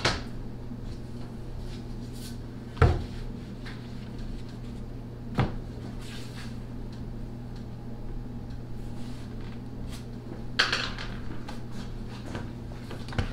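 Handling of plywood sheets and an aluminium track-saw guide rail on a workbench: four sharp knocks and clatters, a few seconds apart, over a steady low hum.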